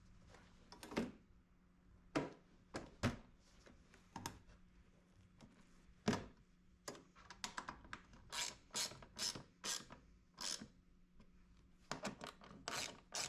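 Ratchet wrench tightening the bolts that hold the seat sliders: irregular clicking strokes, with a run of even strokes about two a second in the second half.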